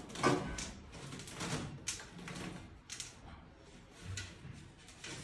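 Flexible aluminium chimney duct pipe crinkling and scraping in irregular bursts as it is pushed and twisted onto the wall outlet, loudest just after the start.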